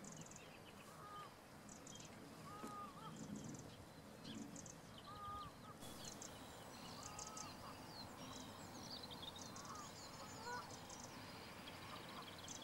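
Faint distant birds calling: one short call repeated every couple of seconds, over scattered high twittering of other birds.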